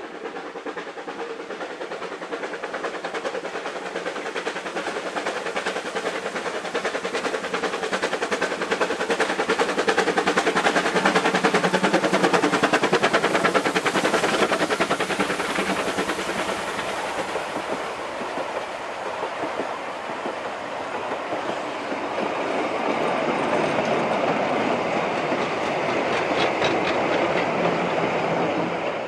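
Two Vale of Rheidol narrow-gauge 2-6-2T steam tank locomotives, Nos. 7 and 8, double-heading a mixed train past at close range. Quick, even exhaust beats and running gear are loudest as the engines pass about halfway through. The carriages and goods wagons follow, rolling by with clattering wheels and a few sharp clinks near the end.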